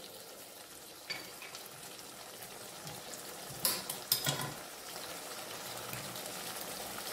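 Chicken liver masala frying and sizzling gently in a kadai, with a steady crackle. A few sharp clicks about halfway through come from the spatula against the pan.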